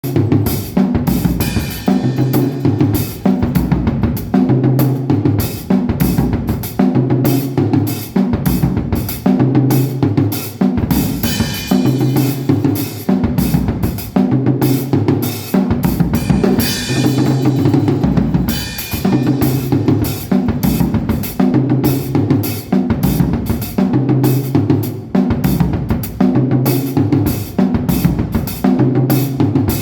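Drum kit played in a sound check: a dense run of rapid snare and bass drum strokes with cymbals.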